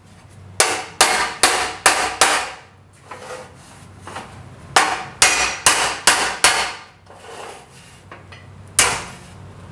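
Ball-peen hammer striking a bent steel pickup-bed cross sill over an anvil to straighten it: two runs of about five ringing metal blows, then a single blow near the end.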